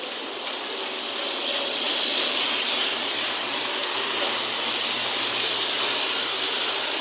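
Steady rush of storm water.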